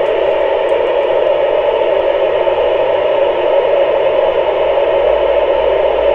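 Steady FM hiss from an amateur radio transceiver's speaker on the ISS repeater channel, with no station talking. It is an even rushing noise, held at about the same loudness as the voices on the channel.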